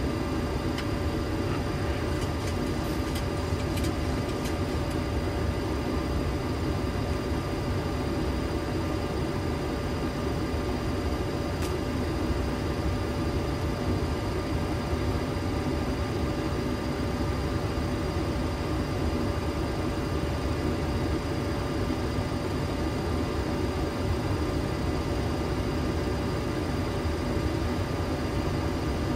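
Steady flight-deck noise of a Boeing 737-800 in descent: an even rush of air with several steady whining tones over it. A few faint clicks come between one and five seconds in and once near twelve seconds.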